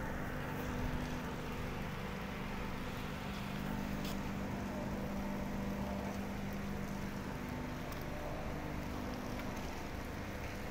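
Steady machinery drone: a constant low hum with a few held tones over a wash of noise, from shipyard equipment running in the dry dock.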